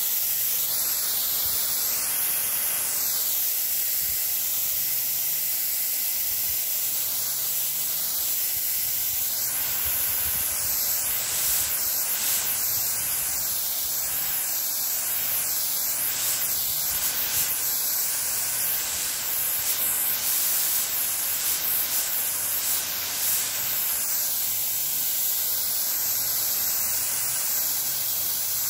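Water spraying from a nozzle as a fine mist over young pomelo plants: a steady, high hiss.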